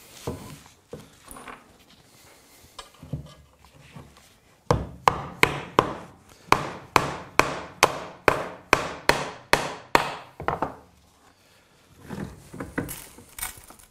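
A steel hammer tapping about three times a second for some six seconds, starting nearly five seconds in, on a flat steel bar being cold-bent around cut nails set in an oak board. Before and after the run, softer knocks as the bar is handled.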